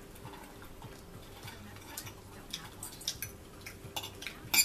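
Forks clicking and scraping against plates of fried food in scattered short clicks, more frequent in the second half, with the loudest clink near the end.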